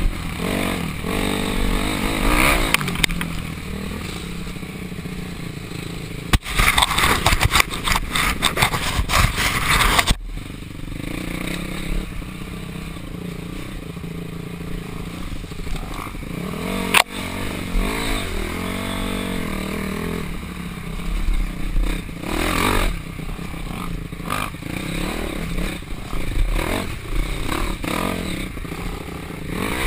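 Dirt bike engine heard from on the bike, revving up and down with the throttle on a rough trail, under scraping and clattering from the bike over rutted ground. A spell of loud rattling crackle runs from about six to ten seconds in, and there is a sharp knock a little past halfway.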